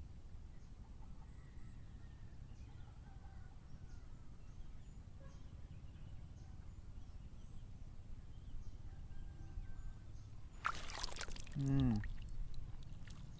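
Steady low wind rumble on the microphone. Near the end comes a loud rushing burst, then a short call that falls in pitch.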